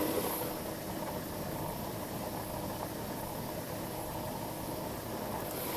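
Stepper-motor drives of a CNC milling machine converted for 3D printing, running steadily as the machine works through a print.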